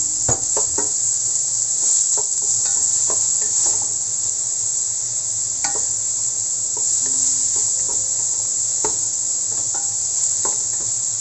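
Diced onion and garlic sizzling in annatto oil in a stainless steel wok, a steady hiss. A wooden spatula stirs through them, knocking and scraping against the pan at irregular moments.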